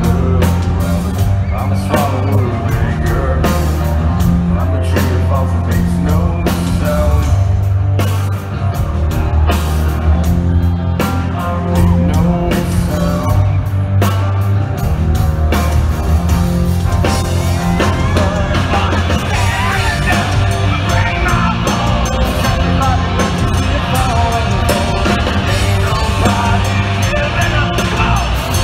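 Live rock band playing loud, with drums, a heavy bass line and a singer's voice.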